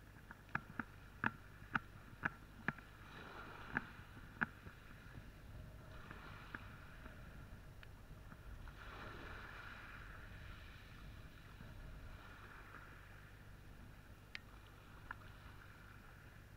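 Small waves washing and lapping over a pebble beach. Over the wash comes a run of about eight sharp clicks, roughly half a second apart, in the first four seconds or so, and two fainter clicks near the end.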